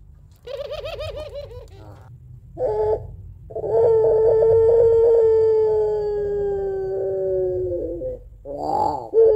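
Puter pelung (domestic ringneck dove) cooing. A wavering call and a short note come first, then one long drawn-out coo of about four and a half seconds that slowly falls in pitch, and a brief call near the end.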